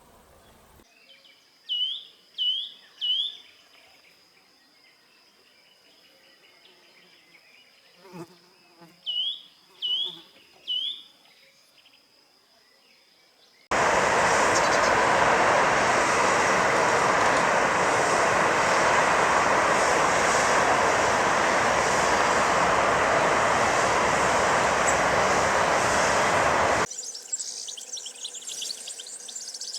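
A bird calls in two bursts of three quick, hooked, whistled notes, with a faint steady high insect tone behind. About halfway through, a loud, even buzzing starts abruptly, holds steady for some 13 s, and cuts off suddenly.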